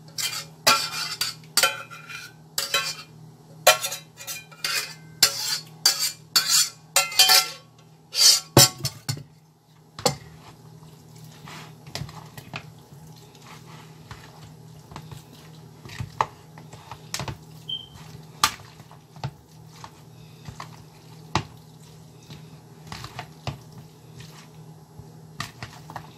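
A spoon stirring and scraping a macaroni salad in a bowl, with utensil clinking on the dish. There are quick, repeated strokes for about the first nine seconds, then only scattered light clinks over a low steady hum.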